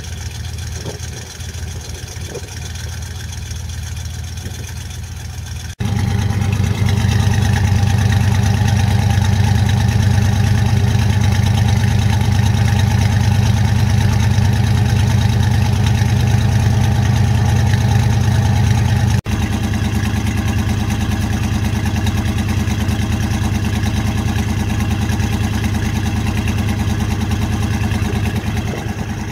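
1978 GMC Suburban's original 350 V8 with its Quadrajet carburettor idling steadily while it warms up after a cold start. It becomes louder and closer about six seconds in, heard right at the tailpipe, and drops back a little at about nineteen seconds.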